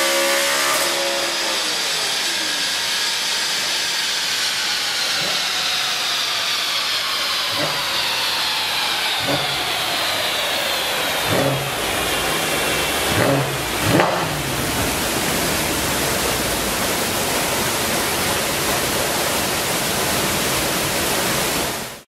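Audi RS5's 4.2 V8 with an HMS exhaust on a chassis dyno, coming off high revs about a second in and dropping away, while the wheels and rollers spin down with a slow falling whine. A few short pops and blips come between about 7 and 14 seconds, over a steady rushing noise.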